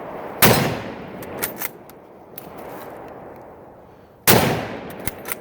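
Two rifle shots from a Lee-Enfield SMLE bolt-action rifle, about four seconds apart. Each shot rings out with a short echoing tail and is followed by a few fainter sharp cracks.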